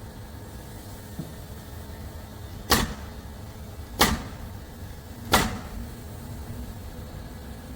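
Three sharp, loud single impacts a little over a second apart, as nails are driven into wooden framing lumber.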